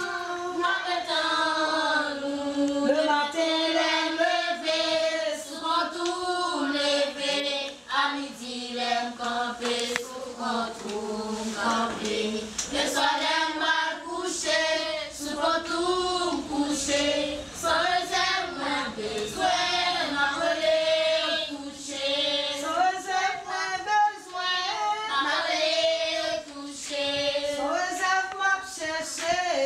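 A group of voices, children's among them, singing a song together.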